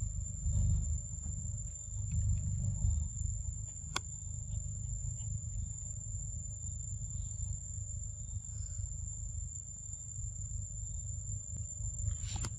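Forest ambience: a low rumble of wind on the microphone, louder in the first few seconds, under a steady high-pitched insect drone. There is a single click about four seconds in.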